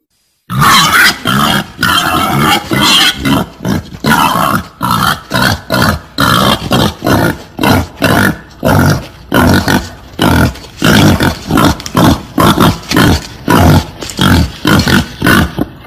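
Female wild boar grunting in a fast, unbroken run of short, harsh grunts, about two a second.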